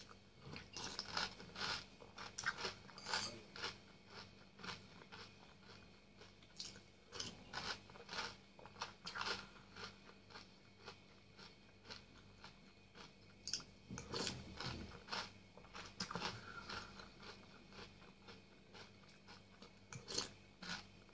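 Close-up chewing and crunching of Nesquik chocolate cereal balls soaked in milk, in short, irregular crunches between spoonfuls.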